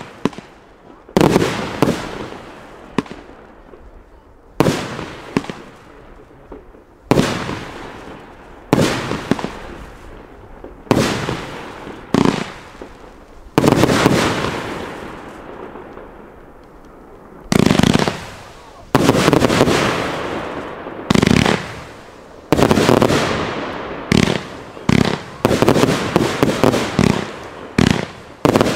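Aerial fireworks bursting overhead: a sharp bang every second or two, each trailing off briefly, quickening into a rapid string of bursts near the end.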